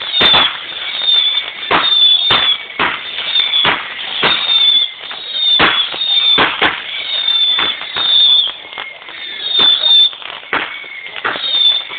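Consumer fireworks going off in a steady barrage: sharp bangs about one or two a second, mixed with high whistles that fall slightly in pitch.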